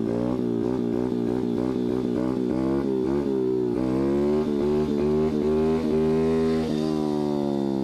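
A 125cc dirt bike's engine held on the throttle through a wheelie. Its pitch wavers up and down as the throttle is feathered, then holds steadier and a little higher in the last few seconds.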